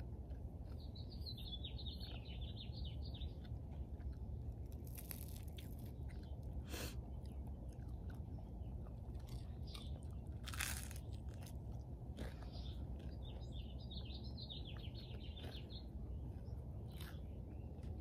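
Crunching bites and chewing of toast, loudest with a sharp crunch about ten seconds in. A small songbird sings two short trilling phrases, one near the start and one about two-thirds through, over steady low background noise.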